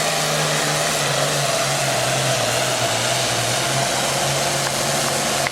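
Super Farm class pulling tractor's turbocharged diesel engine running at full throttle while pulling the sled, with a hissing turbo rush over it. Its note drops slightly about a second and a half in, then holds steady.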